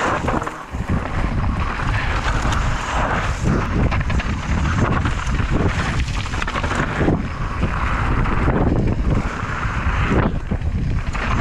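Wind rushing over the microphone of a camera on a mountain bike riding downhill, with many short knocks and rattles from the bike and tyres going over rough ground.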